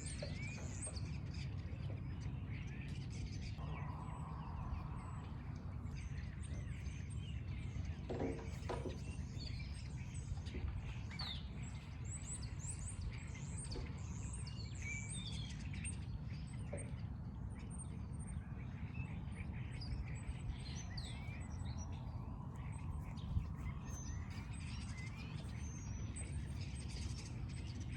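Small birds chirping and calling over a steady low background rumble.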